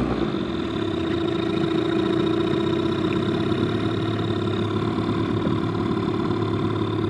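Boat motor running steadily at an even pitch.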